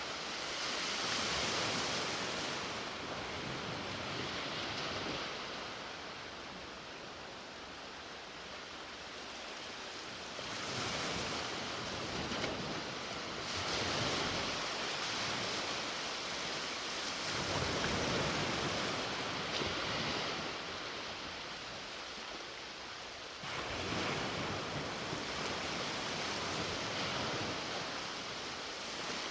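Sea waves washing onto a beach: a steady surf hiss that swells and ebbs every few seconds as each wave breaks and draws back.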